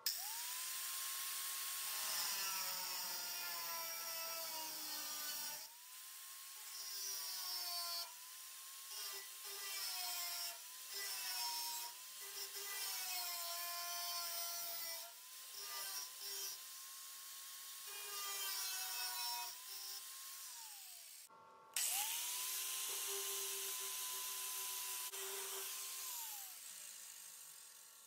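A high-speed handheld grinding tool trimming sheet metal: it spins up with a rising whine, its pitch sags again and again as it bites into the metal, and it winds down about twenty seconds in. It spins up once more, runs steadily, then winds down near the end.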